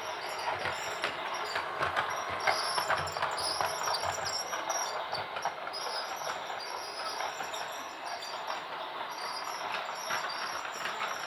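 Toy train running, with a continuous clatter of small clicks.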